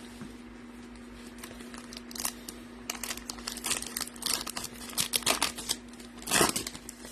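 Foil wrapper of a Topps Chrome trading card pack crinkling and tearing as it is opened and handled, a run of short crackles that is loudest near the end, over a low steady hum.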